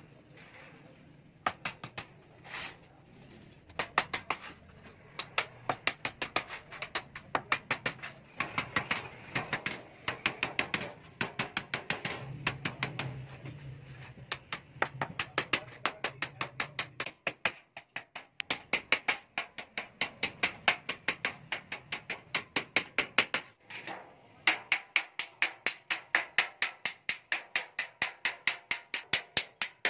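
Hand hammer striking galvanized sheet metal in quick repeated blows, a few a second with short pauses, as the perforated sieve disc's rim is folded and seamed into its hoop.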